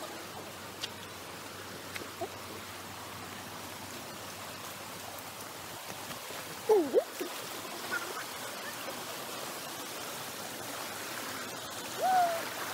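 Steady rush of a shallow mountain stream flowing over rocks. A short sliding call about halfway through and another near the end stand out over it.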